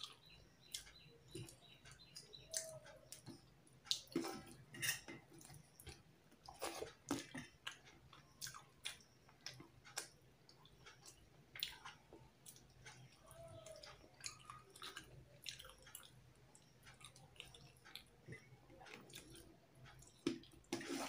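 Quiet, irregular close-up eating sounds: chewing and small wet mouth clicks from a mouthful of rice and fish curry eaten by hand, with soft squishes of fingers working rice on a steel plate.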